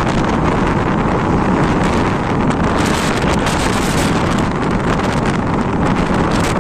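Strong wind rushing and buffeting over a phone's microphone while it moves along, a loud, steady rush with no break.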